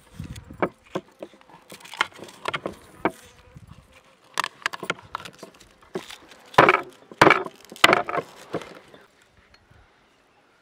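Onions being peeled with a small paring knife: crisp crackles and scrapes of dry, papery onion skin tearing and the blade cutting. Three louder rasps come a little past halfway.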